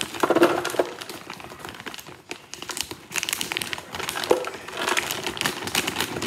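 Plastic bag of fruit crinkling as it is shaken and tipped out over a blender jar, with pieces of fruit dropping into the jar. The crackling comes in two spells, one at the start and a longer one from about halfway through.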